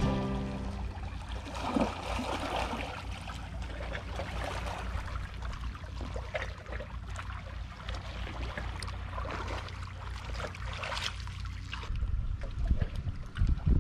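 Gentle sea water lapping and trickling among the rocks at the shoreline, with small irregular splashes and a steady low rumble that swells in gusts near the end.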